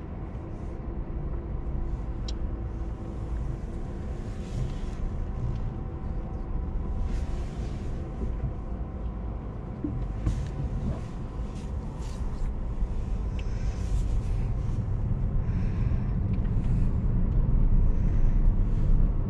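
Road and tyre rumble inside the cabin of a moving Tesla Model S Plaid, with a faint steady whine above it. It grows steadily louder toward the end.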